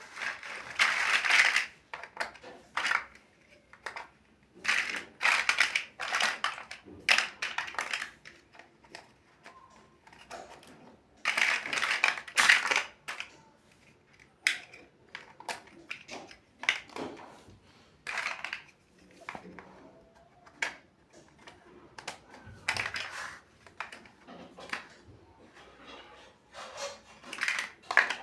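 Plastic building bricks clattering and clicking as they are handled, in several rattling spells of a second or two with single sharp clicks between them.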